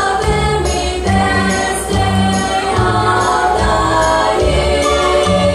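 A group of children singing a song together with an instrumental backing and a steady, repeating bass line.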